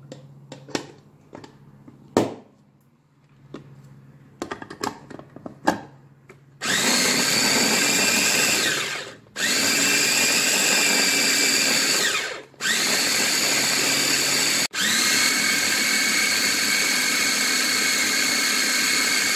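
Electric mini food chopper running in four pulses, each a steady high whine that climbs in pitch as it spins up, chopping raw chicken breast with onion and garlic. A few clicks and knocks come before the motor starts, about seven seconds in.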